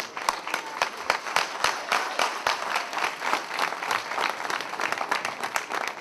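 Audience applauding: dense, steady clapping from many hands.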